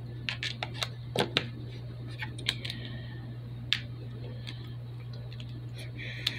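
Hard plastic toy robot parts clicking and tapping at irregular intervals as they are handled and twisted, the clicks thickest in the first few seconds. A steady low hum runs underneath.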